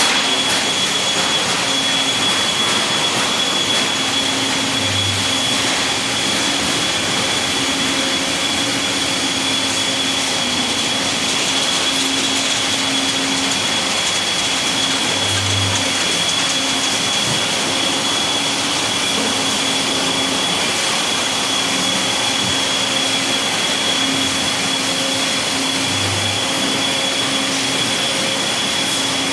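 Steady factory-hall machinery noise: a loud, even rush with a constant high whine and a lower hum that comes and goes, plus a brief deeper hum about every ten seconds.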